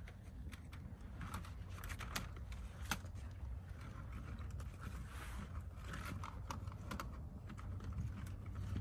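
Knife blade scraping along a wooden stick, carving a feather stick: an irregular string of short scrapes and clicks.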